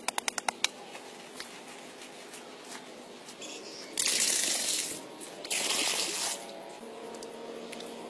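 A few quick strikes of a digging tool into dry soil, then water poured from a container into a small freshly dug pit, splashing onto the earth. It comes in two pours: the first about four seconds in, lasting about a second, and the second half a second after that, a little shorter.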